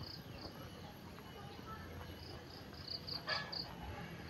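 Insect chirping: short high chirps, the same pitch each time, a couple at the start and then a quick run of them past the middle, over faint outdoor background noise. A brief sharp click about three seconds in is the loudest sound.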